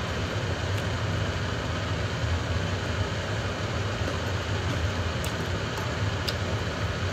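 Steady mechanical hum and hiss, strongest low down, with a few faint clicks in the second half.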